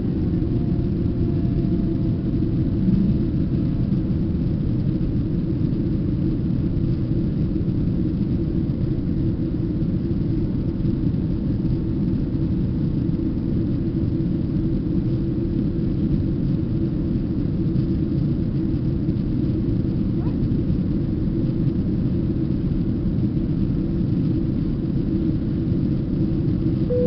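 Steady low drone of jet engines and rushing air inside an airliner's cabin during the climb after takeoff, unchanging throughout.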